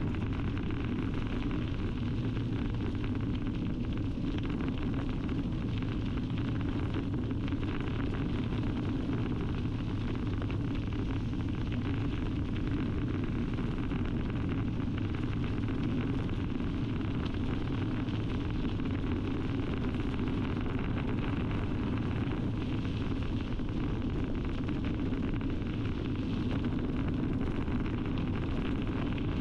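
Steady rumble and crunch of a bicycle's wide knobbly tyre rolling over a gravel towpath, mixed with wind noise on the microphone.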